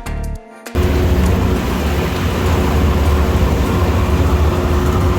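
Background music cuts off under a second in, giving way to a boat engine running steadily under way, a constant low rumble with wind and water hiss over it.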